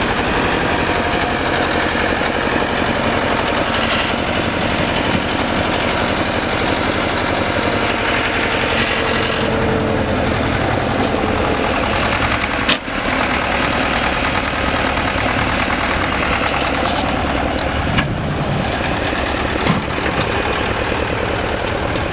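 Wheeled excavator's diesel engine running steadily as the machine digs and swings soil into a dump truck, a dense, even engine clatter, with a few short knocks later on.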